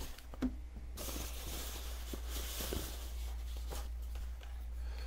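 Tissue packing paper rustling and crinkling as a backup camera is unwrapped and lifted out of its cardboard box, with a few light taps of handling.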